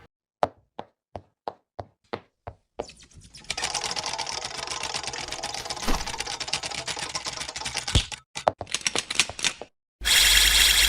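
Sharp clicks, evenly spaced at about three a second, give way to a fast, dense clatter like typewriter keys, which cuts off suddenly. A short, loud burst of noise follows.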